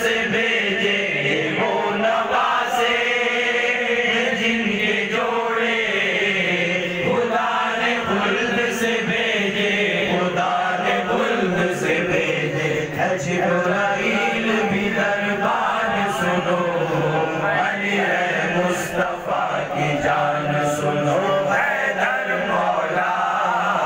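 Men singing a manqabat, an Urdu devotional praise song for Ali, into handheld microphones.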